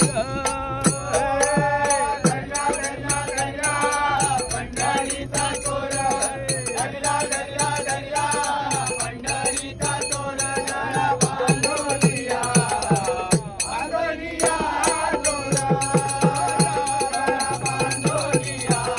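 A group of men singing a Marathi devotional bhajan together, accompanied by brass hand cymbals (taal) struck in a steady rhythm.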